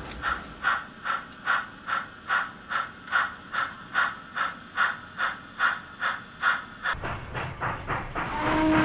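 Steam locomotive exhaust chuffing steadily at about three beats a second. About seven seconds in it gives way to a louder rumble, and a steam whistle starts sounding near the end.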